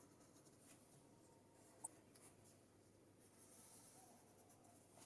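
Faint scratching of a pencil on paper during hand sketching, with one small click about two seconds in.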